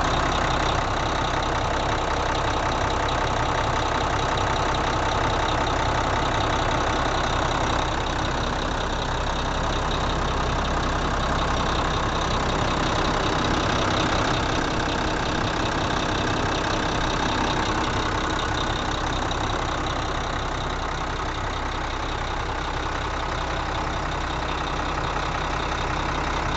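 1999 Mack RD688S roll-off truck's turbocharged diesel engine idling steadily.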